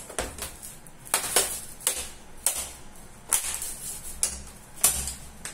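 Plastic snap clips of a Lenovo IdeaCentre C260 all-in-one's rear housing clicking into place as the housing is pressed onto the display panel: a run of sharp, uneven clicks, about two a second.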